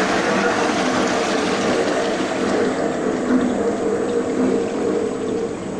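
Planetary mixer running, its motor and beater churning a batch in the steel bowl with a steady whirring hiss and hum, easing slightly in loudness toward the end.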